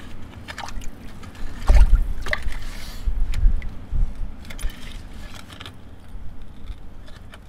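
A shovel working in a waterlogged privy pit: muddy water sloshing and gurgling, with scrapes and clicks of the blade in the mud and debris. Dull thumps come about two seconds in and again around three to four seconds.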